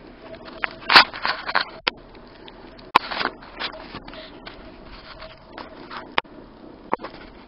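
Footsteps crunching and scraping in deep snow: irregular, the loudest about a second in and again around three seconds, with smaller crunches later.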